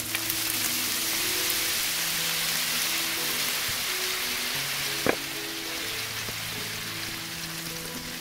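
Pork tteok-galbi sizzling in a frying pan as a glaze is brushed over them, a steady hiss under soft background music. A single sharp tap about five seconds in.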